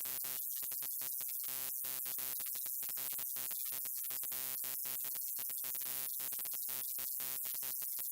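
Neon lamp buzzing: a steady electrical hum with many overtones under a constant high hiss, unchanging in level.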